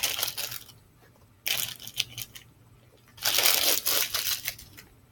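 Plastic bag crinkling and crackling as it is handled, in three bursts.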